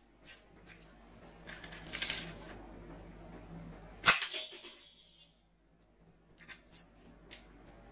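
Blaze Storm manual toy foam-dart bow being handled and loaded, with plastic scraping and rustling, then one sharp, loud snap about four seconds in as it shoots a foam dart. A few light plastic clicks near the end.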